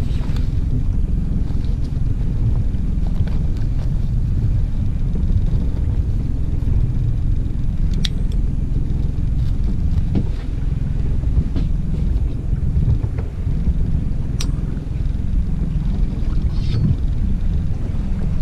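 A small open boat's engine running steadily under way, heard as a low rumble mixed with wind buffeting the microphone; a few sharp clicks stand out now and then.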